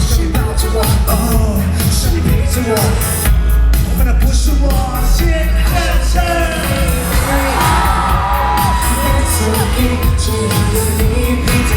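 Loud live pop music: a heavy pounding bass beat under singing voices, with a held note around the middle.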